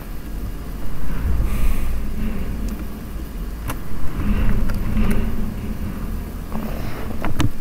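Low rumbling background noise that swells and fades twice, with a few scattered sharp clicks.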